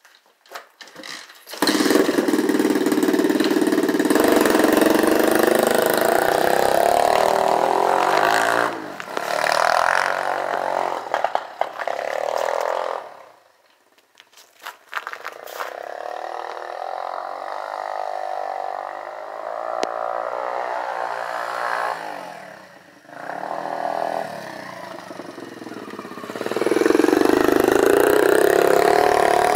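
Tao Tao 125cc dirt bike engine, coming in suddenly about a second and a half in and then revving and running under changing throttle, rising and falling in pitch. It drops away almost to quiet about halfway through, runs lower for a while, and is loud again near the end.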